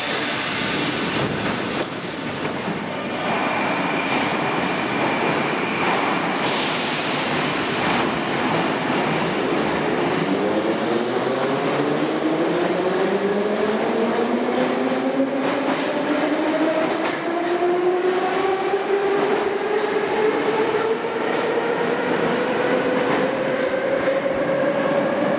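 A Moscow metro 81-717/714.5 'Nomernoy' train pulling away from a station: running rumble and wheel noise, a burst of air hiss about six seconds in, then the traction motors' whine, several tones rising steadily in pitch as the train accelerates.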